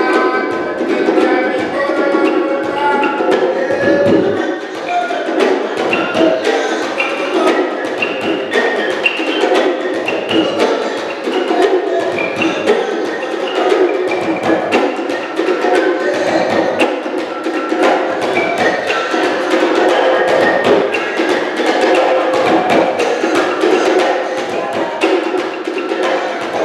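A balafon, the West African wooden xylophone with gourd resonators, played in a quick melodic run of struck wooden keys, with a djembe hand drum adding low thumps underneath.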